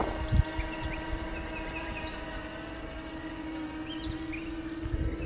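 Steady, high buzzing hum of a DJI Air 2S quadcopter's propellers in flight, over a low rumble, with a few short high chirps.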